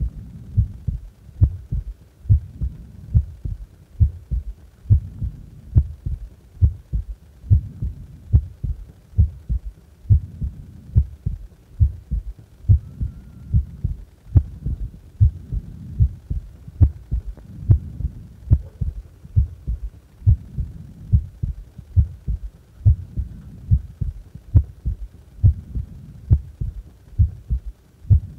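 Human heartbeat at rest, low thumps repeating in a steady, even rhythm.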